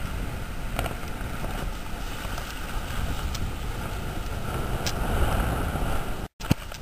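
Wind blowing on the microphone over washing surf, a steady noisy rush heaviest in the lows, broken by a brief drop to silence near the end.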